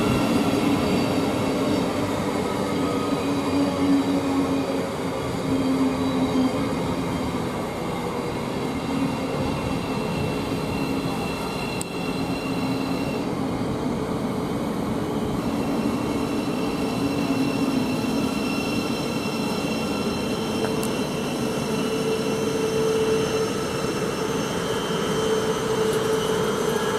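A Thameslink Class 700 electric multiple unit running into the platform: a steady train rumble with several steady humming tones over it.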